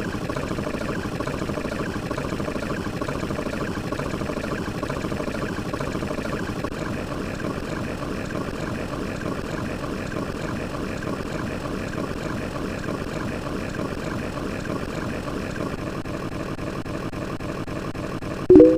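A steady, even engine-like running noise that holds unchanged throughout.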